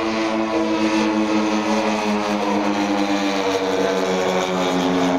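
A radio-controlled scale model of an FMA IA 58 Pucará flies overhead. Its twin propellers make a steady two-toned drone whose pitch sinks slowly.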